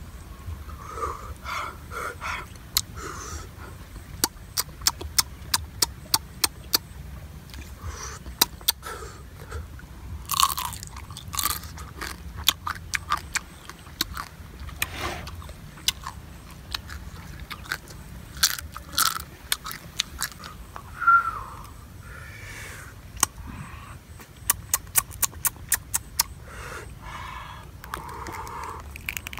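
A person eating small crabs: many sharp crunches and cracks as the shells are bitten, chewed and broken apart, with softer slurps and puffs of breath in between.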